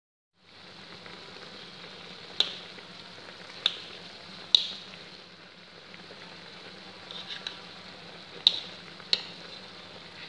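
Fish pieces cooking in bubbling oily liquid with garlic, onion and ginger in a wok: a steady sizzling hiss with a faint low hum under it, and five sharp clicks or pops standing out, a cluster of three in the first half and two more near the end.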